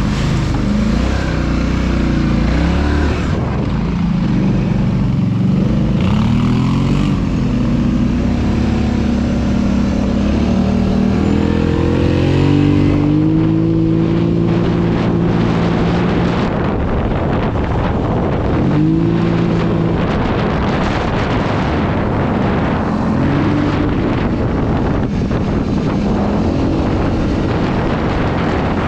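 ATV engine running under load while riding, the throttle repeatedly opened and eased so the engine note rises and falls, with road and wind noise underneath.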